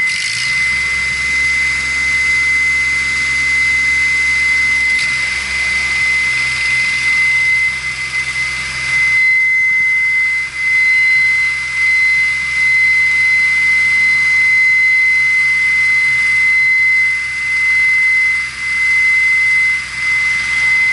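Large mobile crane's engine running steadily under load while hoisting a section of over 3 tons, a low hum with a steady high-pitched whine over it.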